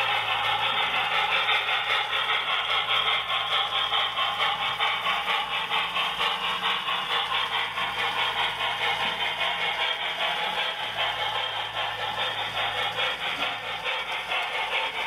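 Model train running on its track: a steady clatter and rattle of wheels over the rails with a low electric motor hum, getting a little quieter in the second half.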